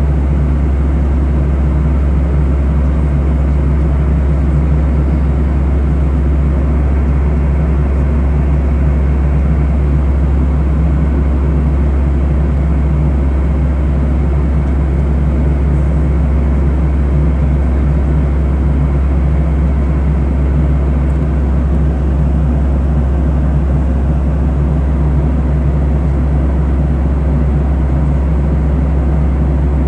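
Steady cabin drone of a Boeing 737 airliner in flight: jet engine and airflow noise heard from inside the cabin, dominated by a deep low rumble with an even hiss above it.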